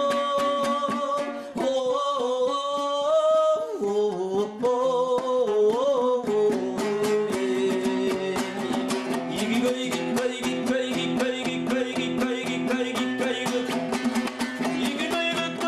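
Kazakh folk song: a solo voice holding long, bending notes over a fast-strummed plucked string instrument. The voice drops out about six seconds in and the strumming carries on alone.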